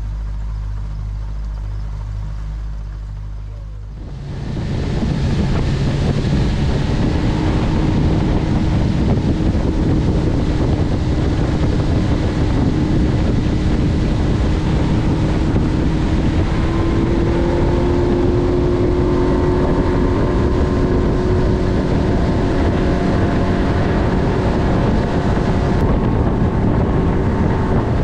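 Motorboat engine running low at first, then throttled up about four seconds in and running at speed, with wind on the microphone and water rushing past the hull.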